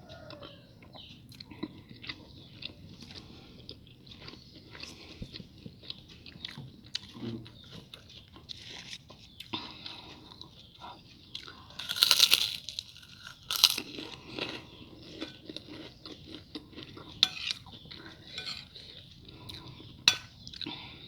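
A person chewing and crunching crisp food close to the microphone, with many small crunches and two louder crunching bites a little past halfway.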